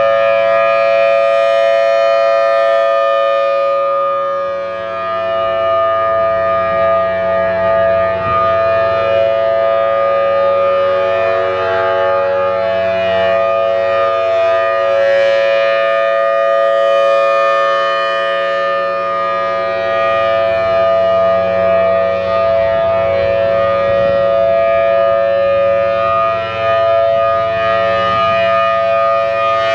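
Federal Signal Thunderbolt 1000T outdoor warning siren sounding its Alert signal, a steady unbroken tone. The rotating horn makes it swell and dip slightly in loudness.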